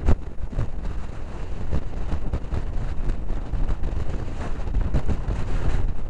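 Hurricane-force storm wind buffeting the microphone: a heavy, low rumble in gusts with sudden pops, masking the rough sea.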